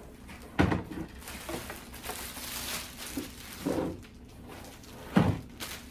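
Plastic wrapping rustling as it is pulled off a heavy ice cream maker, with two dull thumps as the machine is handled, about half a second in and near the end.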